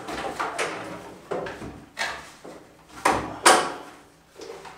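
Heavy battery cables being handled and fitted at an inverter's terminals: a string of scrapes and knocks, with two sharp knocks close together about three seconds in, the second the loudest.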